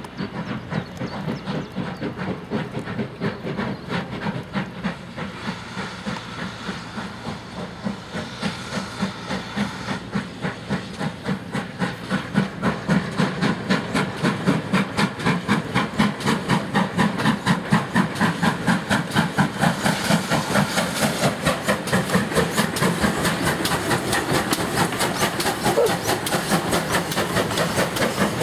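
Steam tank locomotive pulling away with a train of coaches: a steady rhythm of sharp chimney exhaust beats over a hiss of steam, growing louder as it comes past.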